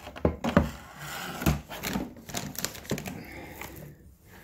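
Irregular clicks, knocks and scraping rattles of hand tools and plastic and metal parts being handled while the mower's engine covers and gas tank are unbolted.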